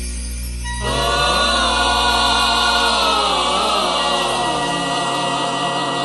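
Background music: held chords, joined about a second in by several voices singing together.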